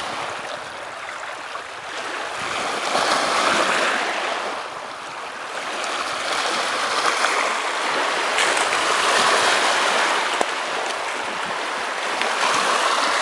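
Small lake waves washing onto a pebble shore, the rush of water swelling and fading about every three seconds.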